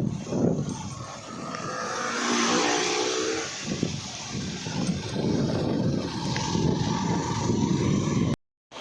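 A vehicle on the move: steady engine and road noise. A brief pitched sound comes in about two and a half seconds in, and the sound cuts off abruptly near the end.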